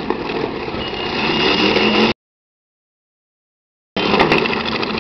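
Demolition derby car engines idling and running in the arena. The sound cuts out to dead silence for about two seconds midway, where the recording breaks, then resumes.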